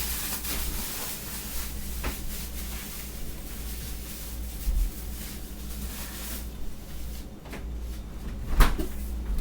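Kitchen handling sounds: scattered small knocks and rubbing, with one louder knock near the end, over a steady low hum.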